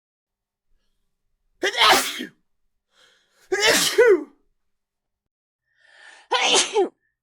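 A person sneezing three times, about two seconds apart, each a short loud 'achoo', with dead silence between them.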